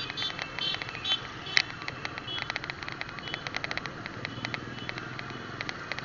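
Motorcycles and a tricycle running along a road: a steady engine and road rumble under a fast run of ticking rattles, with one sharp click about a second and a half in.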